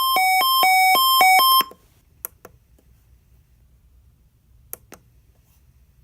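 NOAA weather radio alarm sounding for a weekly test: a loud beep alternating between a lower and a higher pitch about twice a second, growing louder, then cutting off about a second and a half in. A few sharp clicks follow.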